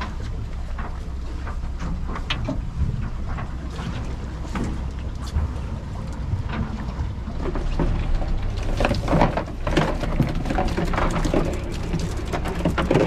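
Honda outboard motor idling with a steady low hum, under water lapping and splashing against the aluminium hull. From about eight seconds in, a dense run of splashes and drips as the wet cast net is hauled back aboard.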